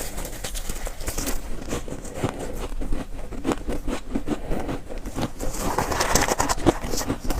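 Close-up chewing of soft shaved ice: repeated soft crunching bites, with a denser crackling bite about six seconds in.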